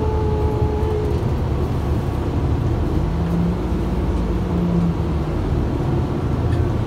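Steady low rumble of a city transit bus running, heard from inside the passenger cabin. A short steady tone sounds in the first second, and a lower steady hum comes in for about two seconds in the middle.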